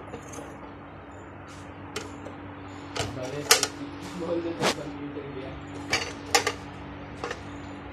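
Sheet-metal ECU mounting bracket and the ECU's metal case knocking and clanking against each other and the workbench as they are handled: about seven sharp, irregularly spaced knocks, the loudest about three and a half seconds in.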